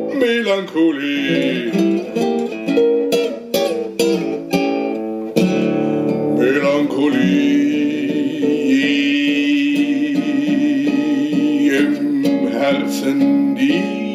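A man singing a slow song in German to his own acoustic guitar accompaniment. About halfway through he holds one long sung note for several seconds over the guitar.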